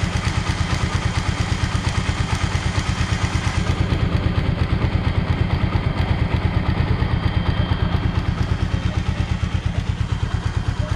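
Suzuki Raider 150 Fi's single-cylinder, liquid-cooled engine idling steadily with an even, fast pulse, hot enough that its electric radiator fan has been switched on.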